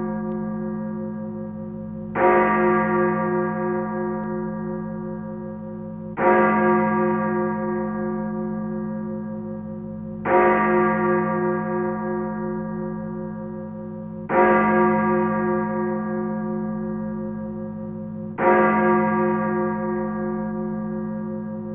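A bell tolling slowly: struck five times, about once every four seconds, each stroke ringing on and fading away until the next.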